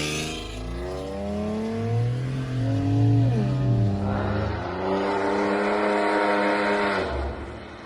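Straight-piped BMW E30 wagon engine revving: the exhaust note climbs, dips sharply about three seconds in, climbs again and holds steady, then falls away near the end.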